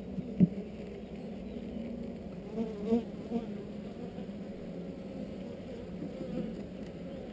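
Honeybees humming steadily over an opened nucleus hive. A sharp knock about half a second in and a few softer knocks around three seconds come from the wooden frames being shifted with a hive tool.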